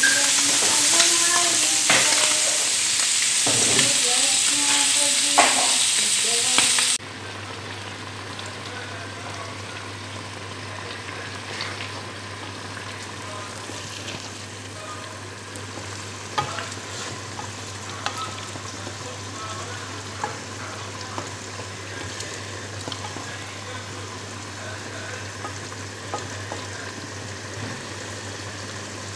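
Chicken gizzard and liver stew with carrots and potatoes sizzling in a pan, with a loud high hiss that drops off abruptly about seven seconds in. After that it goes on as a quieter simmer over a steady low hum, with occasional clicks of a utensil stirring against the pan.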